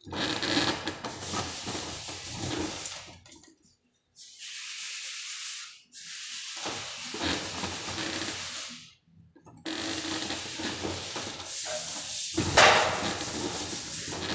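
Scraping and rubbing of wet plaster of Paris, a steel trowel and hands working the plaster, in several rough stretches broken by short pauses. A louder scrape comes near the end.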